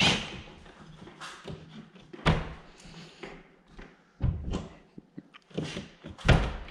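Scattered knocks and thuds as a metal TV wall-mount bracket and level are handled and shifted against a drywall wall, the louder knocks about two seconds in, around four seconds in, and near the end.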